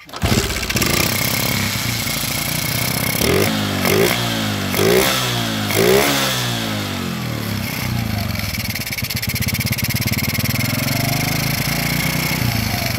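Kawasaki Kaze R four-stroke motorcycle engine running on a freshly fitted Honda Supra 125 carburettor, being test-run: four short blips of the throttle a few seconds in, then a steady idle.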